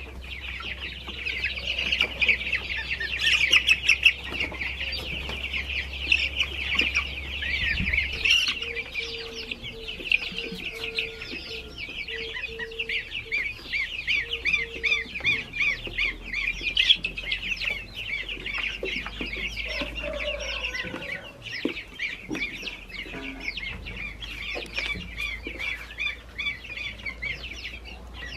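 A large brood of baby chicks peeping all at once, many short high-pitched chirps overlapping without a break.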